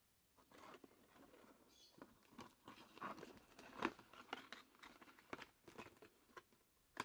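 Light handling of a small cardboard product box and paper card: a string of soft rustles, taps and clicks that starts about half a second in, the loudest click about four seconds in.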